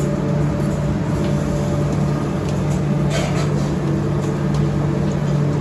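An egg-and-chicken-filled Mughlai paratha sizzling as it deep-fries in a kadhai of hot oil, with a few faint crackles about three seconds in. A steady low machine hum runs under it and is the loudest part.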